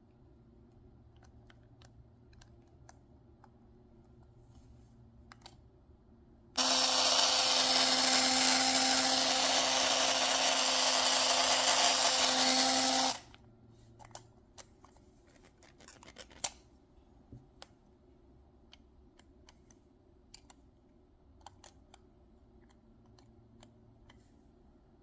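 Philips Sonicare electric toothbrush switched on for about six seconds, buzzing loudly with a harsh rattle, then cut off. The rattle is the fault of a brush whose head has come loose. Light handling clicks come before and after.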